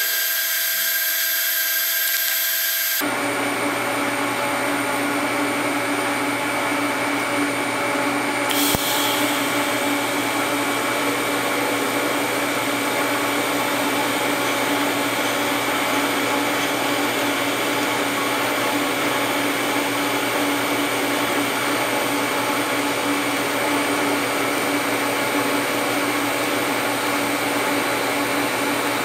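TIG welding arc on 1/8-inch stainless steel from an HTP Invertig 221, run at about 70 to 80 amps on the foot pedal, making a steady buzzing hiss with a hum under it. For the first three seconds only a thinner high hiss is heard, then the full arc sound comes in and holds steady.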